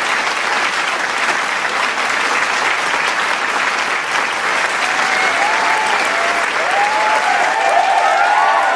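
Large studio audience applauding with dense, steady clapping. Cheers and whoops from the crowd come up over the clapping from about halfway through.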